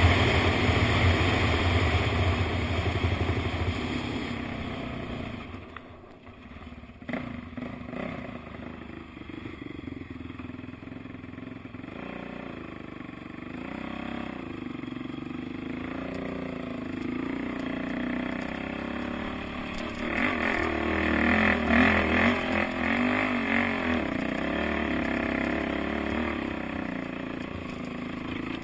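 Honda TRX450ER quad's single-cylinder four-stroke engine being ridden at speed with wind rushing over the microphone, then easing off about five seconds in. It then revs up and down at lower speed, with a louder burst of throttle about two-thirds of the way through.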